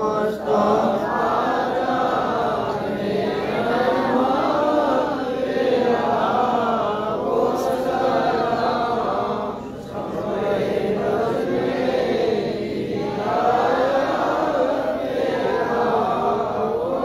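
Men's voices chanting an Urdu devotional salaam (salutation to the Prophet) in long, drawn-out melodic phrases of a few seconds each, with short breaks between them.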